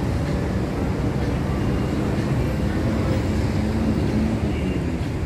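Steady city street traffic noise, a continuous low rumble of passing vehicles, with a faint engine hum rising for a second or two around the middle.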